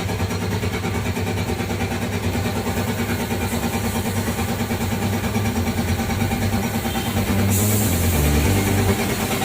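Yamaha RX two-stroke single-cylinder motorcycle engine idling steadily.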